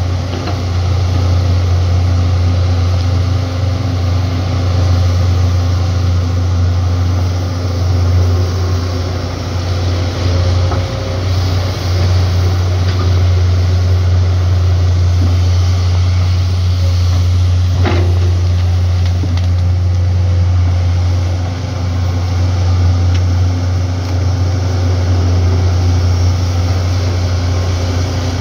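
Diesel engines of Komatsu crawler excavators running steadily under load as they dig, a deep constant drone. A single sharp knock comes about two-thirds of the way through.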